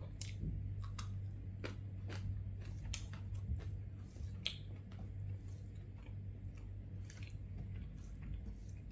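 Close-miked chewing and wet mouth clicks of someone eating a meal of rice and fish curry, with irregular small clicks throughout and a steady low hum underneath.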